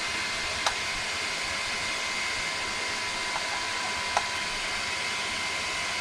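Twin Thunderoos 18K high-speed RC cooling fans running steadily off the ESC's 6-volt fan port: a constant rush of air with a steady high whine. Two light clicks, one under a second in and one about four seconds in.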